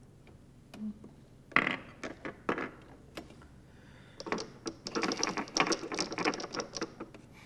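Glass marbles clicking and rattling against each other and the wooden game board as they are picked up and dropped. A few separate clicks come first, then a quick run of clicking lasting about three seconds near the end.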